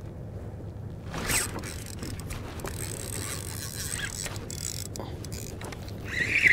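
Spinning fishing reel being cranked, its gears whirring with scattered clicks, starting about a second in.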